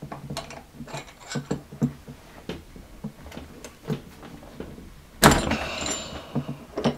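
Tubular spark plug wrench and its metal bar clicking and rattling as a spark plug is loosened and taken out of a small generator engine: irregular small metallic clicks, with a louder scraping rattle about five seconds in that lasts about a second.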